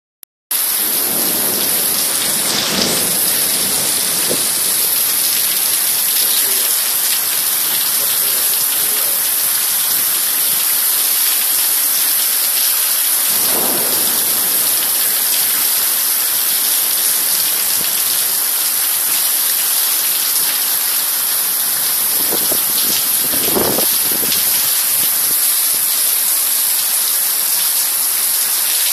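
Heavy rain falling steadily: a loud, even hiss of rain on surfaces, broken three times by brief low rumbles, near the start, about halfway and near the three-quarter mark.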